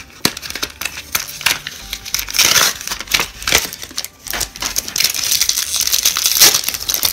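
Yu-Gi-Oh blister pack and foil booster pack wrapper crinkling and crackling in the hands as the pack is taken out and opened, in irregular bursts.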